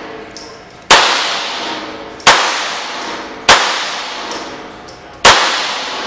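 Handgun firing four single shots at a slow, steady pace, about one every one and a half seconds. Each shot rings on in a long echo off the concrete walls of an indoor range.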